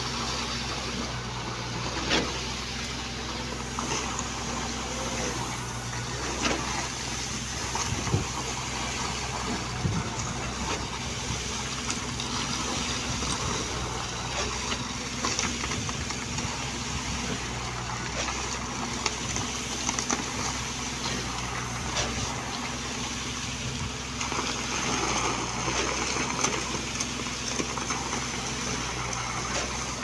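Concrete pump's diesel engine running steadily, with a few short knocks and scrapes from tools working the wet concrete.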